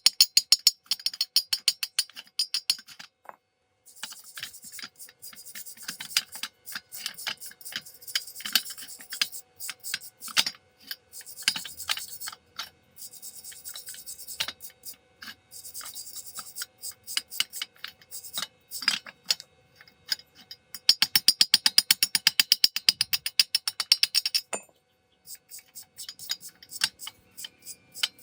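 Stick (arc) welding on steel pipe: the arc crackles and sizzles in dense rapid pops. It stops and restarts twice, breaking off briefly about three seconds in and again near the end.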